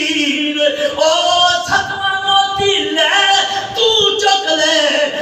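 A man's voice chanting in a melodic, sung style through a microphone, with held notes that slide in pitch, as a preacher does when reciting verse in a sermon.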